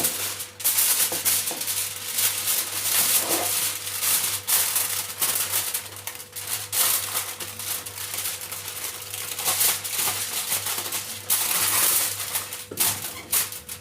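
Continuous rattling and crinkling with many sharp clicks: hands at work with kitchen utensils and packaging while potatoes are prepared for baking.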